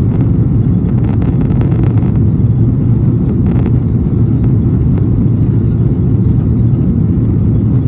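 Cabin noise of a Boeing 737-800 climbing just after takeoff, heard inside at a window seat over the wing: the steady low roar of its CFM56-7B engines at climb thrust, mixed with airflow.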